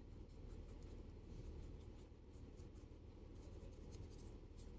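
Faint, quick scratchy strokes as black shading paint is worked onto the wrinkles of a cold porcelain figure, over a low steady hum.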